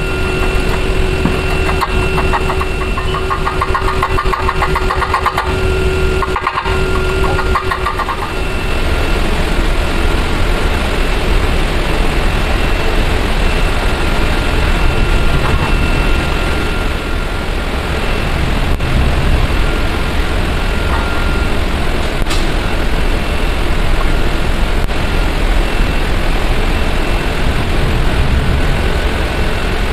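A motor running steadily, with a fast flutter and a steady hum in the first eight seconds or so, then a plainer steady drone.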